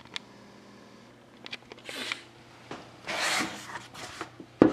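Handling noises from a sealed hockey card box being held and turned by hand: a few light clicks, rustling and scraping against the box's wrapped surface, and a sharp knock near the end, the loudest sound.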